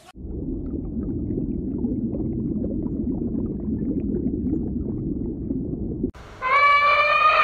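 Underwater recording on a coral reef: a steady low rumbling and bubbling of water, which cuts off suddenly about six seconds in. Near the end an elephant trumpets: one long, loud, brassy call.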